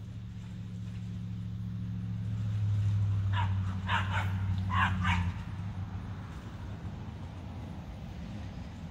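A dog barking a few short times in quick succession, about three and a half to five seconds in, over a low steady hum that swells and then cuts off just after the barks.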